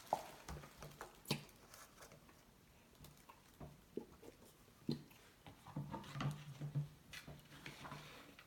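Quiet handling noises: scattered light taps and clicks as Elmer's glue is squeezed from its bottle into a bowl.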